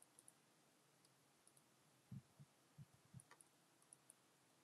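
Near silence with faint computer mouse clicks scattered through, several in quick pairs, and a few soft low thumps about two to three seconds in.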